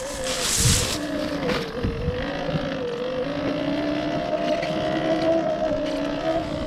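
Electric Sur-Ron Ultra Bee enduro motorcycle being ridden off-road: a steady motor whine that wavers slightly in pitch with the throttle, with wind buffeting the microphone and a short hiss about half a second in.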